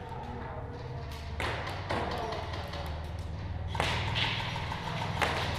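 Several sharp knocks and cracks during an airsoft game: airsoft shots and BBs striking the cardboard barricades. A steady low hum sits underneath.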